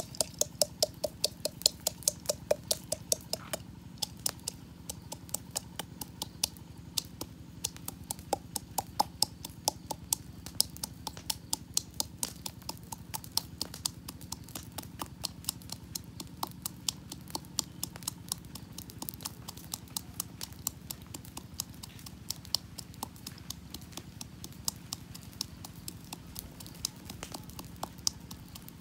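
A pestle pounding ingredients in a small stainless-steel cup: steady, sharp knocks about three or four a second, with a faint metallic ring in the first few seconds.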